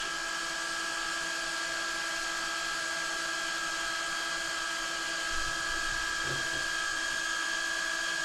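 Steady, unchanging electric whine: a high tone over a lower hum.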